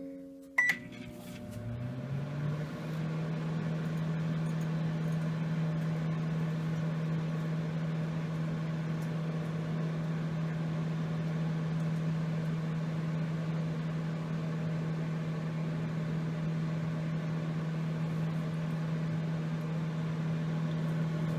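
Microwave oven started with a short beep, its hum rising in pitch over the first couple of seconds and then running steady.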